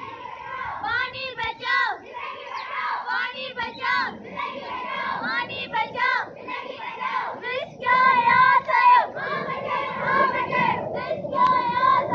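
A group of children chanting slogans together while marching, in short rhythmic phrases repeated over and over.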